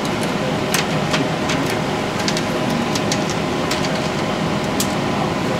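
Steady mechanical hum of cinema projection-booth equipment, with scattered light clicks and snaps as 70mm film is threaded by hand through the projector's sprockets and rollers.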